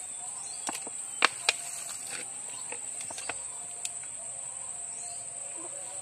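Steady high-pitched chirring of insects in the undergrowth, with a few sharp clicks over it; the loudest two come close together about a second and a half in.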